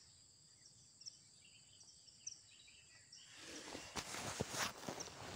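Faint high insect buzz and chirping, then from about three seconds in a louder stretch of rustling with a few sharp knocks, as someone moves over the dry bamboo leaves on the riverbank.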